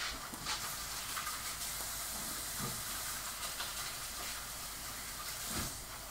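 Diced chicken breast sizzling in a frying pan over a gas flame: a steady, even hiss.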